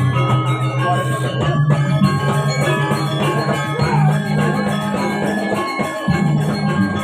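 Balinese gamelan playing: bronze metallophones ringing over sustained low gong tones.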